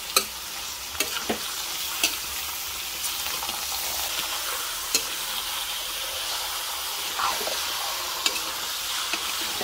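Chunks of buffalo meat sizzling in a hot metal wok while a metal ladle stirs them, with a steady frying hiss and about six sharp knocks of the ladle against the pan, the loudest right at the start.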